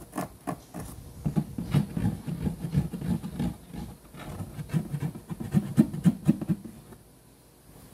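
Fingers scratching and rubbing on a corrugated cardboard cat scratcher inside a cardboard box, in quick irregular strokes that stop near the end.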